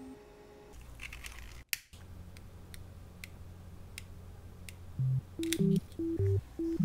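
A few sharp, isolated clicks, roughly half a second to a second apart, over a low steady hum, the small handling noises of hand crafting work. Background music with a plucked bass line comes in about five seconds in.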